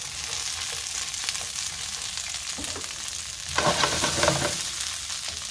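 Asparagus sizzling in a frying pan in hot oil and the fat left from the steak, a steady hiss that grows briefly louder for about a second a little past the middle.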